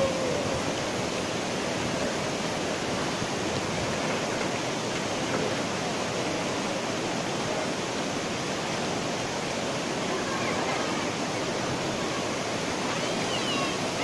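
Steady rushing of water over the rocks of a shallow stream, an even hiss with no breaks.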